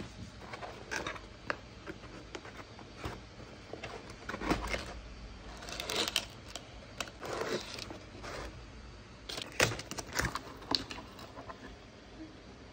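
Cardboard pizza boxes being handled and opened: irregular taps, scrapes and rustles of cardboard and paper.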